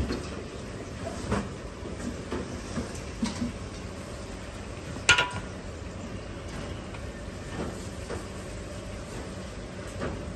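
Metal kitchenware clinking: a wok and utensils knocked lightly now and then, with one loud ringing clank about five seconds in, over the steady rumble of a commercial kitchen.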